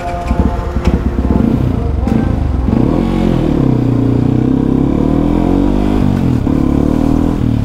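Yamaha WR155R's single-cylinder engine through an aftermarket Radamel F4 titanium exhaust, pulling away and picking up speed. The engine note rises and falls several times as the throttle and gears change.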